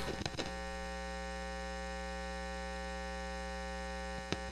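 Steady mains hum with a buzz of many overtones, as from an electric guitar rig's amplifier switched on and idle. A few clicks at the start and a single click near the end.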